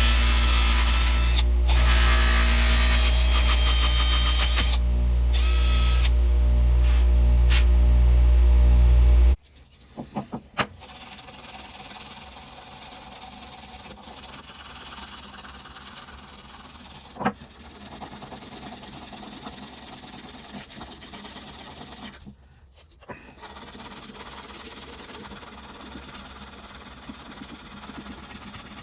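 A power tool running steadily with a low hum and a bright grinding hiss, cutting off abruptly about nine seconds in. After that there is only a quieter steady hiss broken by a few sharp clicks.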